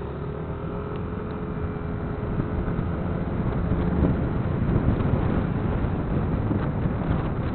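Wind buffeting the microphone of a camera on a moving Yamaha NMAX scooter as it speeds up, with the scooter's engine tone heard steadily for the first few seconds and then mostly buried under the wind rumble.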